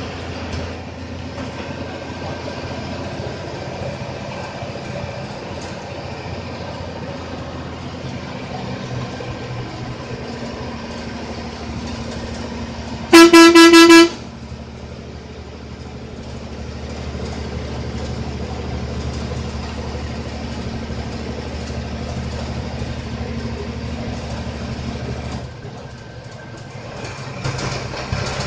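The engine of an APSRTC bus running steadily, heard from inside the bus as it climbs a ghat road. About thirteen seconds in, a horn gives one loud single-pitched blast lasting about a second. Near the end the engine note dips briefly.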